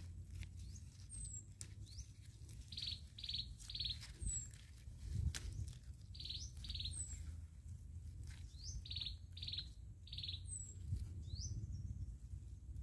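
Birds singing: a short, high, falling call repeated about every second and a half, and three times a quick phrase of three buzzy notes, with a few rising whistles between. A couple of sharp clicks, one at the start and one about five seconds in.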